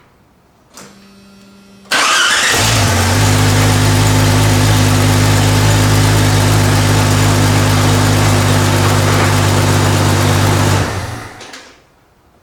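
Jeep Cherokee XJ's 4.0-litre straight-six cranked by its newly replaced starter, catching within about a second and running steadily, then switched off near the end and dying away. The new starter cranks the engine and it fires up fine. A faint hum comes about a second in, before the cranking starts.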